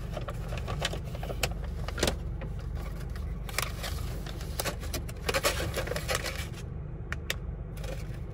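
Brown paper gift bag rustling and a packet of mixed nuts crinkling as hands open the bag, dig among the snack boxes and pull the pouch out. Under it runs a steady low hum of the car cabin.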